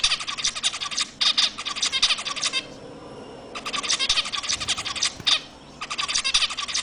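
A group of zebra finches calling: many quick, sharp notes packed together in four bursts, with short pauses between them.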